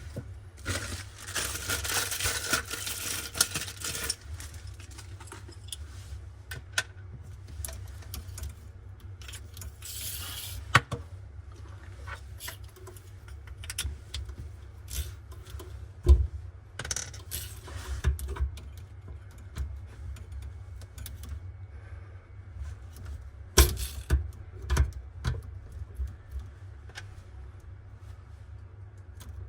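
Small metal parts and tools clinking, tapping and knocking at irregular intervals during kitchen faucet installation work, with a few short rustling or hissing stretches over a steady low hum.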